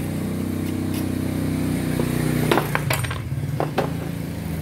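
About five sharp metallic clinks close together about halfway through, as the metal soleplate and thermostat assembly of a disassembled clothes iron is handled on a wooden bench, over a steady low hum.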